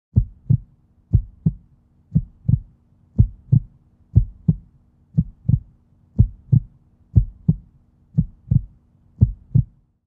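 Heartbeat sound effect: deep double thumps in a lub-dub pattern, about one beat a second, ten beats in all.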